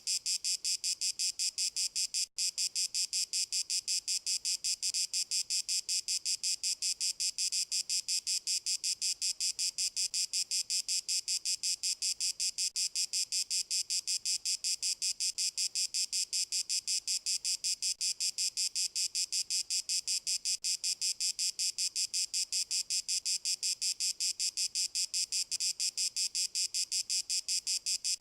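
Crickets chirping in a fast, even, unbroken pulse, high in pitch, with a momentary gap a couple of seconds in.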